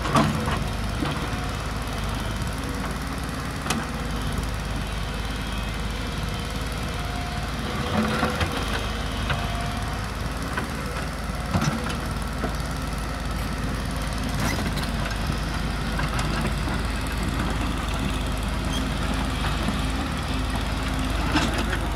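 JCB tracked excavator's diesel engine running steadily as it digs, with several sharp knocks and clanks from the steel bucket striking stone rubble.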